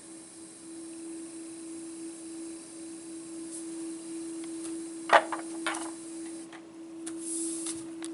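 A steady hum under a faint hiss. About five seconds in comes one sharp clink, followed by a softer one, as a metal inoculating loop is set down into its holder on the lab bench. A few light taps follow near the end.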